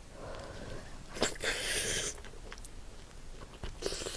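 Close-up eating sounds of whole braised octopus: soft wet sounds as it is pulled apart by hand, with a short hiss about a second and a half in. Near the end come sharp clicks as it is bitten into.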